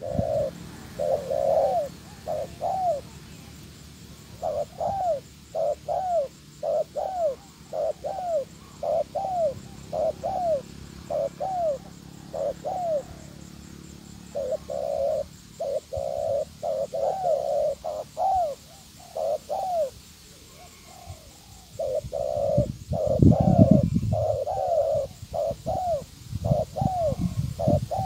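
Spotted dove cooing: groups of short coos that rise and fall, repeated again and again with brief pauses between groups. A low rumble comes in under the cooing about 22 seconds in.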